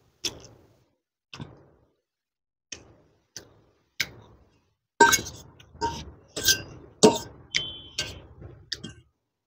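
An eating utensil clinking and scraping against a dish while noodles are eaten. The sharp, briefly ringing taps come a few at a time at first, then faster and louder from about halfway through.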